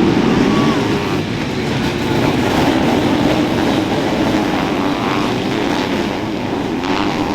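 Motocross racing engines revving and running hard as machines pass on the track, loudest at the start and easing a little later.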